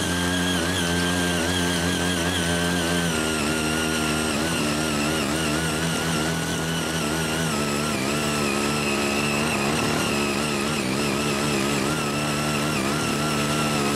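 Small engine of a CY80 foldable mini tiller running steadily as its eight rotary tines churn soil, its pitch wavering a little. Background music plays along with it.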